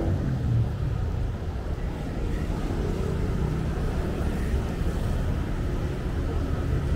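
Road traffic on a busy city street: a steady low rumble of passing vehicles.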